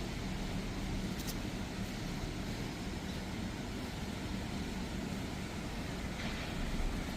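Steady city street noise, mostly traffic, with a brief tick about a second in.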